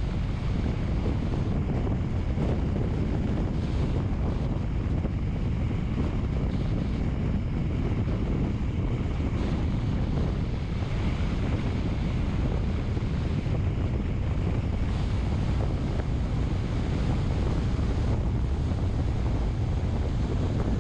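Steady low rumble of wind buffeting the microphone, unbroken throughout.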